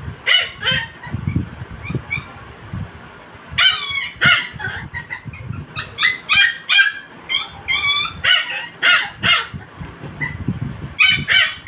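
A puppy yipping and barking in play, with short high-pitched yaps coming in quick clusters: a few near the start, a long run through the middle, and more near the end.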